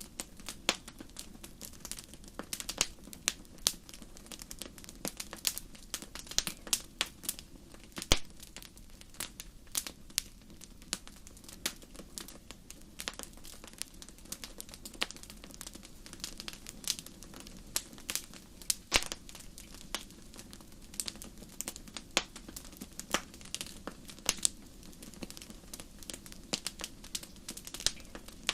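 Wood fire crackling: irregular sharp pops and snaps, a few of them much louder than the rest, over a faint steady low noise.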